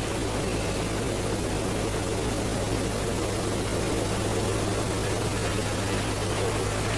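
A steady low hum under an even hiss, with no distinct sounds standing out.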